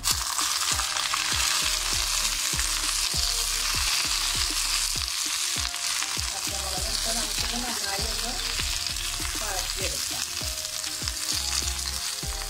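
Green chillies hitting hot ghee in an iron kadai: a sizzle that starts suddenly as they go in and keeps going as they wilt, with a steel spatula knocking and scraping against the pan as they are stirred.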